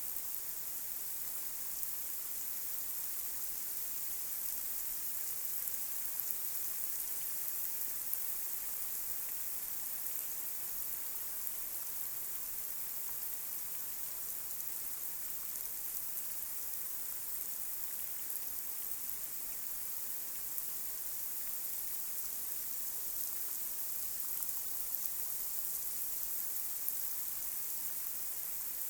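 Light rain falling steadily on a street, a continuous hiss with scattered drop ticks.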